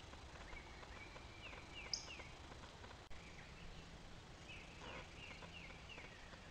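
Faint songbird calls: quick runs of short, falling notes, once about a second and a half in and again near the end, with a single higher chirp about two seconds in. A short click just after three seconds, where one trail-camera clip ends and the next begins.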